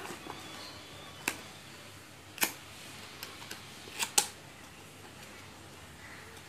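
Cardboard packaging handled: a few sharp clicks and taps as a small retail box is slid out of its cardboard sleeve, with a close pair about four seconds in.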